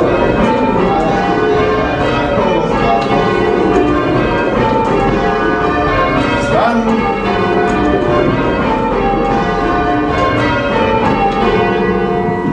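Church tower bells being rung in changes: a ring of bells striking one after another in a steady, even rhythm, their tones overlapping and hanging on.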